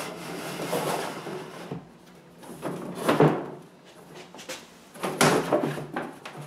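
Thin 6 mm plywood panel sliding and scraping against the chipboard sides of kitchen base cabinets as it is pushed down into place, in three bouts, the loudest about three seconds in.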